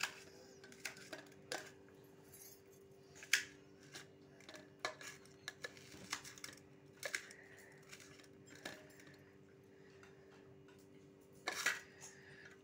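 A knife chopping onion in a stainless steel plate: irregular clicks and taps of the blade striking the metal, roughly one a second, some with a brief ring. A louder clatter comes near the end, over a faint steady hum.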